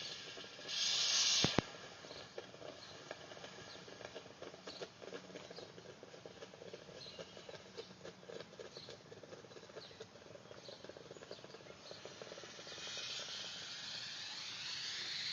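Steam hissing from a homemade plumbing-pipe boiler. A short burst ends with a sharp click about a second and a half in. Faint irregular crackling ticks follow, then the hiss swells again near the end.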